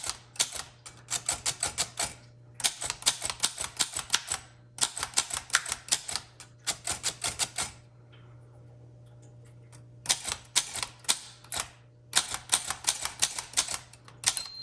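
Keys of a 1914 Corona 3 typewriter being struck one after another in quick runs of sharp clacks, typing the figure row with the FIG shift locked, with a pause of about two seconds in the middle.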